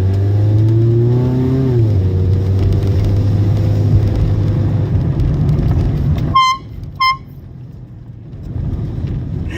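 A car's engine accelerating, its pitch climbing for about two seconds and then dropping as it shifts up, then running steadily. About six seconds in, the engine sound falls away and two short high beeps sound less than a second apart.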